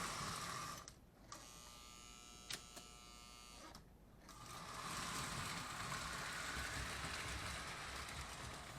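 Postwar Lionel O gauge steam locomotive running on the track, its small electric motor whirring. About a second in the running drops away for roughly three seconds, with a single click in the pause, then picks up again.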